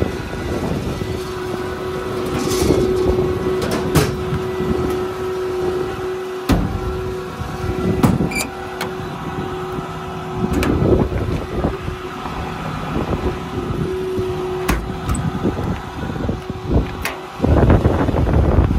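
Metal service-body compartment doors and latches clicking and clunking as they are handled, over a steady mechanical hum and wind on the microphone.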